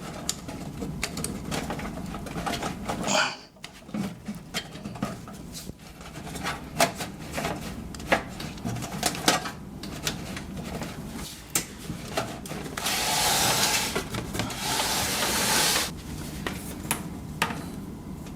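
Hands working on hard-drive and SATA cable hardware inside a PC case: scattered clicks and knocks of plastic and metal parts. About two-thirds of the way through there is a steady rasping rub lasting around three seconds.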